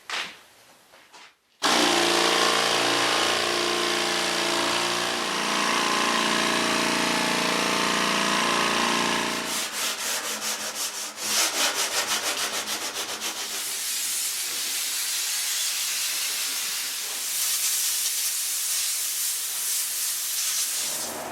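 Sanding a reclaimed-wood countertop with 100-grit sandpaper before shellac. It starts about a second and a half in as a loud, steady scratching with a hum under it. Partway through it turns to quick rhythmic strokes, about four a second, and then settles into a steady hiss.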